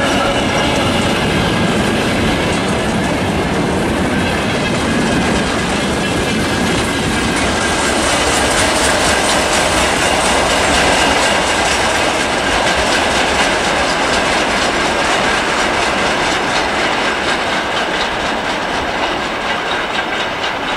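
ČME3M diesel shunting locomotive passing close, its engine heard briefly at first, then a string of tank wagons rolling by, their wheels clattering and clicking over the rail joints.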